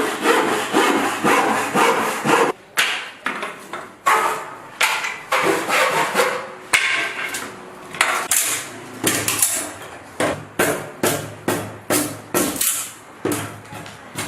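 Repeated strokes of a hand tool working wood, each a sharp hit or scrape that dies away, speeding up to a steady rhythm of about two a second in the second half.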